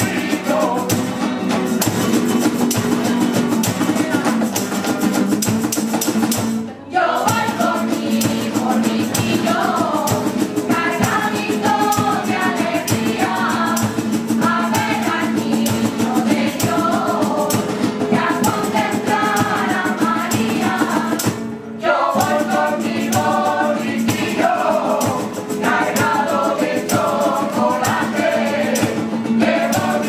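Women's rociero choir singing a Spanish Christmas villancico in unison, with hand clapping, a jingling tambourine, cajón and Spanish guitar behind them. The music breaks off very briefly twice, about a quarter and two-thirds of the way through.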